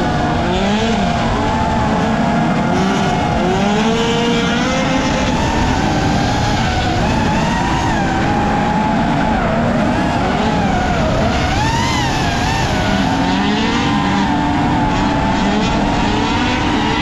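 Drift cars' engines revving up and down with tyre squeal; several engine notes overlap, rising and falling, over a steady wash of tyre noise.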